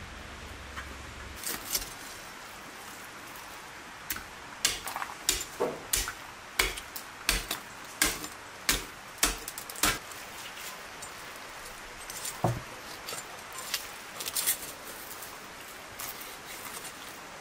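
A run of short, sharp clinks and knocks, about two to three a second for several seconds, then thinning out to scattered ones.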